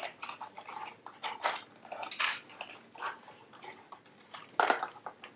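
Clear plastic blister packaging crackling and clacking as a gaming mouse and its cable are worked out of it, in irregular crinkles with louder cracks about a second and a half in, just after two seconds and about four and a half seconds in.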